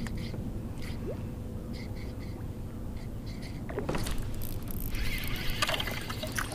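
Low wind rumble with a faint repeated chirp, then from about four seconds in, water splashing and churning as a bluegill hooked on a topwater popper thrashes at the surface while it is reeled in.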